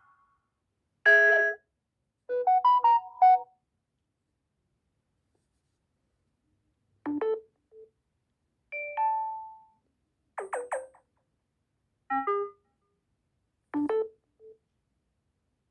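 Short stock Samsung Galaxy A71 phone alert tones played one after another: a series of brief electronic chimes and melodic blips, each under about a second. Two come in the first few seconds, then after a pause five more follow about every second and a half.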